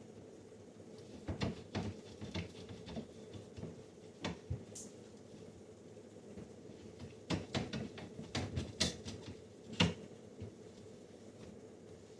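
Jars, bottles and containers being handled and set down on refrigerator shelves: scattered knocks and clatters in two busy spells, over a faint steady hum.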